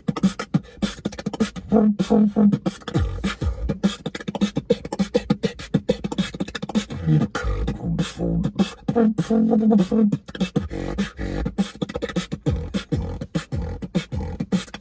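Beatboxed drum and bass, all made with the mouth: a fast, dense run of kick, snare and hi-hat sounds over a deep hummed bass line that swoops down low every few seconds.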